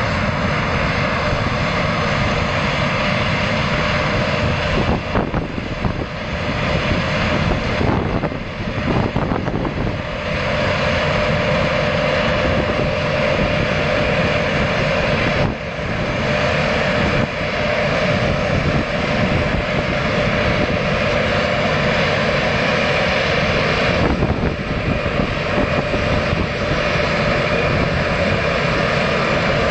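Claas Lexion 580 combine harvester running steadily while combining wheat: a continuous engine and machinery drone with a steady whine on top, dipping briefly a few times.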